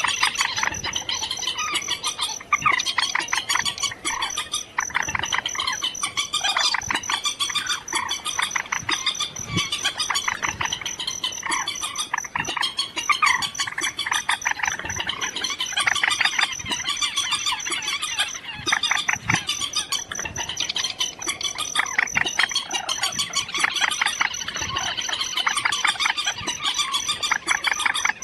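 Recorded bird calls played as a lure for night net trapping: a dense, continuous chorus of rapid, repeated chattering calls, with a steady high-pitched tone behind them.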